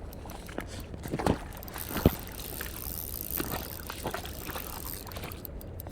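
Handling noise: scattered soft knocks and clicks, the sharpest about two seconds in, over a steady low rumble.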